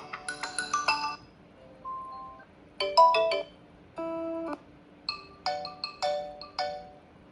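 OnePlus 10 Pro ringtones playing: short electronic melodies of chiming, plucked-sounding notes, several different phrases one after another with brief pauses between them, and one held ringing tone about four seconds in.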